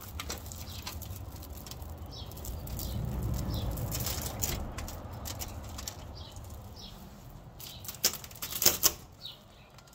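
Small birds chirping in short, repeated high calls, over a low rustling rumble, with a quick run of loud sharp clicks or rustles near the end.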